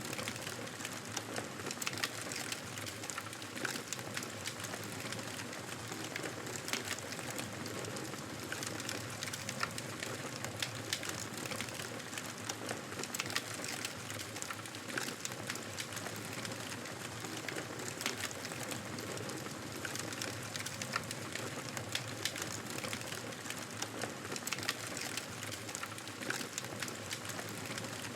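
Wood fire crackling in a fireplace: a steady hiss dotted with many small, sharp pops and snaps.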